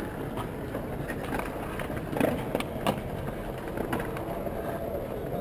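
Steady low outdoor rumble with scattered sharp clicks and ticks, several about a second apart.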